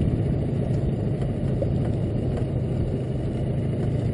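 A small boat's outboard motor running steadily with an even low hum.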